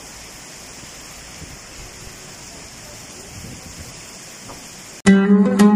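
Heavy rain pouring steadily, an even hiss. About five seconds in it cuts off suddenly, and louder plucked-string music starts.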